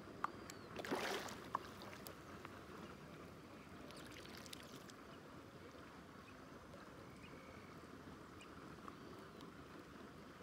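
A hooked fish splashing at the surface about a second in, with a sharp click just before and just after, then a fainter splash around the middle, over quiet outdoor background.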